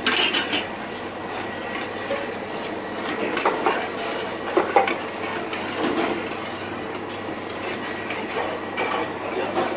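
A gas stove burner under a large steel pot runs with a steady rushing noise. A few sharp clinks and scrapes of metal on the pot break through it now and then.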